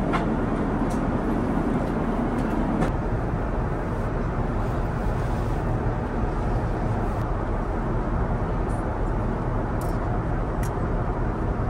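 Steady airliner cabin noise in flight, a dull even rush of air and engines. A few faint light clicks and clinks of tableware being set on the table are heard near the end.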